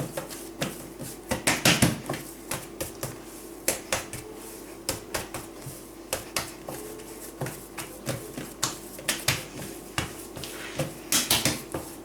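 Hands knocking back and kneading risen yeast dough in a bowl: irregular wet slaps and knocks, two or three a second, over a steady low hum.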